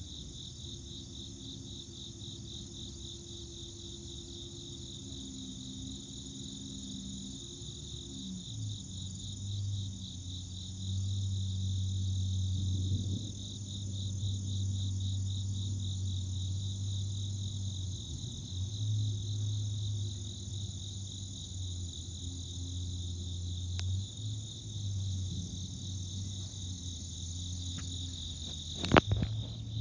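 Insects trilling steadily in a high, fast-pulsing chorus, with a low rumble of distant thunder swelling in from about nine seconds in and rolling on. A single sharp click comes near the end.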